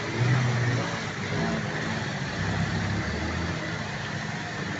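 Vehicle engines idling and running in slow traffic through floodwater, with brief low engine hums over a steady background hiss.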